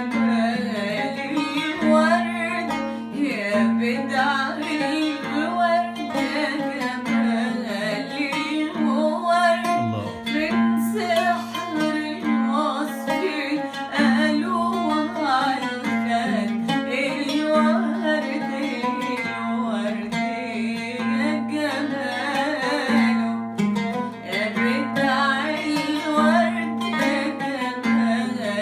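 Music: a song with plucked strings over a repeating bass line, with a singing voice.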